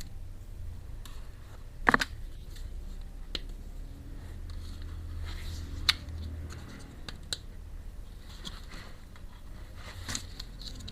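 Small clicks and taps of miniature toy kitchen pieces being handled and unpacked, with light scratching between them. A sharper knock about two seconds in is the loudest, and a few single clicks follow later.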